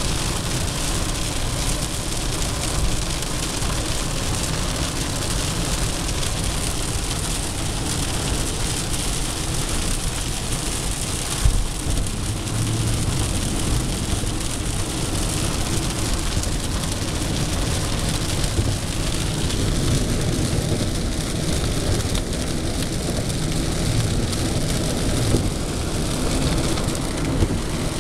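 Steady noise inside a Subaru's cabin driving at highway speed in heavy rain: rain hitting the roof and windshield, mixed with tyre noise on the wet road. One brief knock comes a little before the middle.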